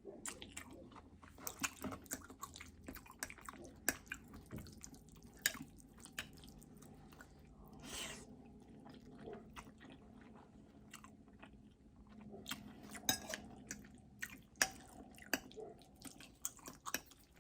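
Close-miked chewing of spaghetti in meat sauce: wet mouth clicks and smacks come irregularly throughout, with a longer breathy sound about 8 seconds in.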